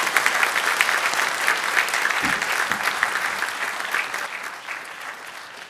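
Audience applauding, a dense patter of many hands clapping that thins out and dies away near the end.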